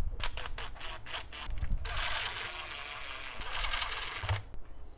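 A few sharp clicks of plastic parts and screws being handled, then a small cordless screwdriver running for about two and a half seconds as it drives a screw, with a thin high whine over the ratcheting.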